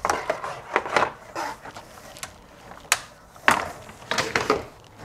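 Irregular knocks, taps and light clatter of a faux wood blind's headrail and slats being handled, with the loudest knocks a little past the middle and near the end.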